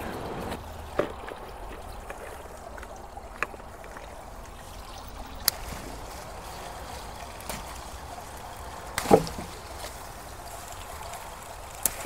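Faint steady trickle of water, broken by a handful of brief sharp clicks, the loudest about nine seconds in.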